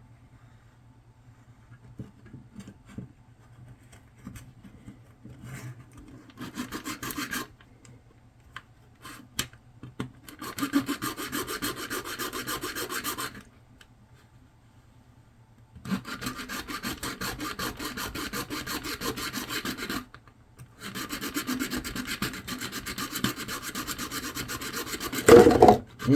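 Plastic casing being cut and scraped by hand in four bursts of rapid scraping, each a few seconds long, with short pauses between them. A louder knock comes near the end.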